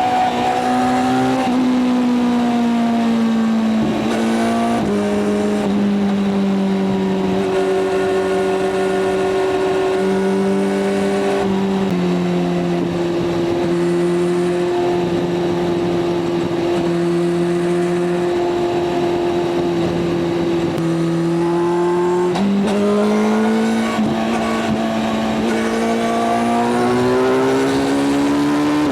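Kawasaki Z900's inline-four motorcycle engine running at steady highway revs, the pitch stepping down at upshifts about 4 and 12 seconds in. From about 22 seconds in the pitch jumps up and climbs steadily as the bike accelerates.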